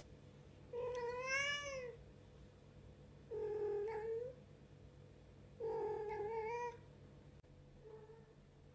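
Domestic cat meowing: three long meows of about a second each, the first rising and then falling in pitch, and a faint short meow near the end.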